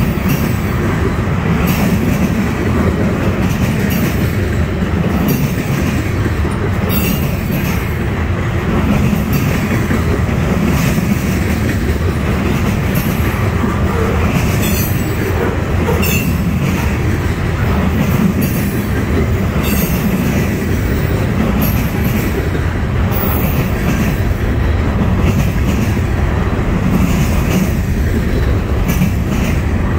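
Freight train of trash containers on flatcars rolling steadily past: a continuous rumble of steel wheels on rail, with clicks every second or two as the cars go by.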